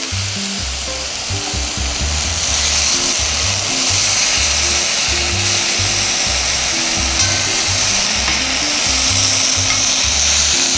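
Bacon-wrapped roll sizzling in a hot frying pan: a steady, loud hiss of frying fat, under background music with a bass line.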